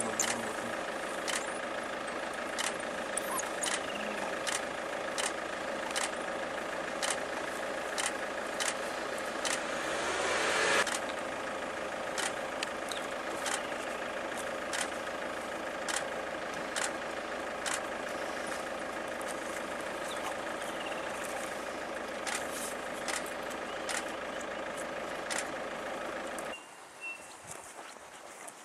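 Vehicle engine idling steadily, with a sharp tick about every two-thirds of a second; the engine cuts out abruptly near the end.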